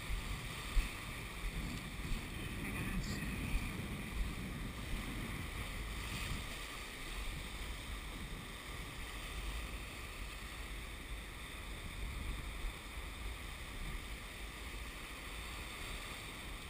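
Small surf waves breaking and washing over the sandy shallows, with wind noise on the microphone.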